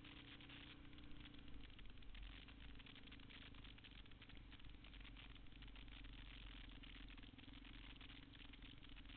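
Motorcycle engine running steadily while riding, heard faintly, with a dense rattling over it.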